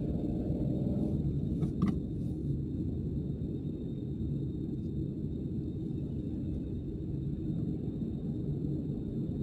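Car driving on a city road: a steady low rumble of engine and tyres, with two brief clicks just under two seconds in.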